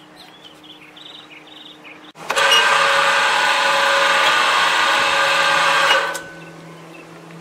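Boat lift's electric motor running, turning the cable winder spool to wind the lift cable up: a steady machine whine that starts about two seconds in, runs for about four seconds and stops.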